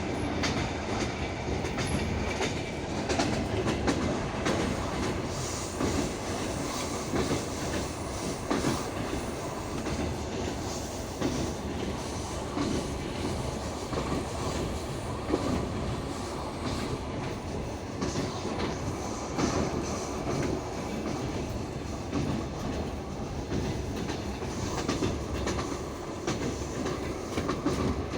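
Passenger train wheels rolling along the track, heard from inside the carriage: a steady rumble with the clickety-clack of the wheels over the rail joints.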